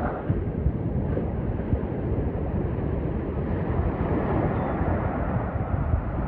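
Steady wash of ocean surf, with wind buffeting the microphone in low rumbles.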